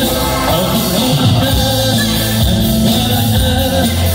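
Amplified live music through stage speakers: a sanshin (Okinawan three-stringed lute) band playing a song with a singer, over a steady bass line.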